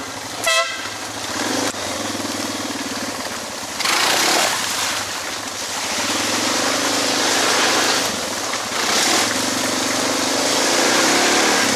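Suzuki DR650 single-cylinder dual-sport motorcycle engine running under way, its note rising and falling. A short horn toot sounds about half a second in, and there are two bursts of rushing noise, around the middle and near the end.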